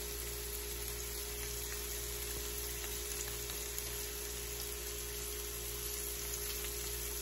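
Onions and green peppers sizzling steadily in hot vegetable oil in a pan.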